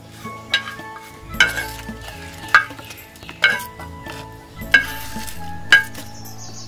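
Coconut-shell spoon scraping and knocking against a clay pan about once a second, six strokes in all, as curry leaves and red chillies are swept out into a wooden mortar. Soft instrumental background music plays throughout.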